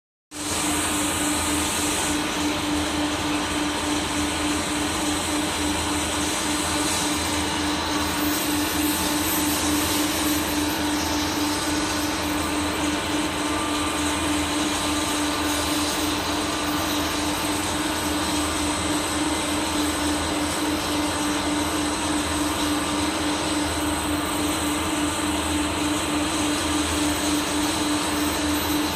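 Steady machine hum and hiss, with one strong low tone held throughout and no breaks or changes.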